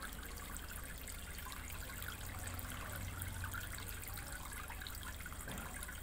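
Small homemade tabletop fountain running: water from a small electric pump spraying and trickling onto stones and into a shallow plastic tub, faint and steady, with a low steady hum beneath.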